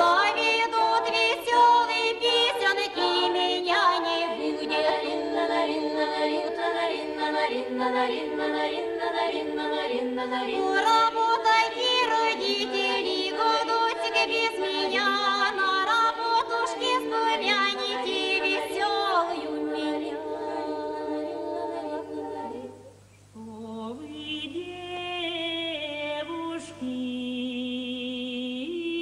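Unaccompanied choir singing a folk-style song in several voice parts, with a quick rhythmic beat under the voices. About 23 s in the singing drops away briefly, then resumes more softly with long held notes.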